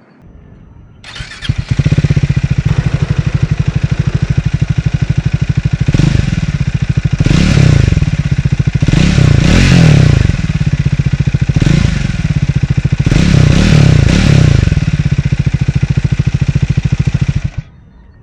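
Triumph Speed 400's 398 cc single-cylinder engine starts about a second in and idles with an even beat. It is revved in several short blips, then switched off near the end.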